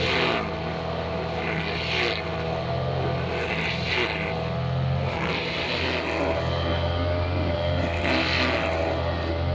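Brushcutter engine running steadily at a high, even pitch, with a hissing swish every second or two as the cutter sweeps through the grass.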